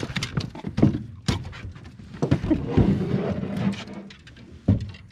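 Thumps and knocks on a fishing boat's deck as a small blue catfish is handled on board, with a busier stretch of handling noise in the middle.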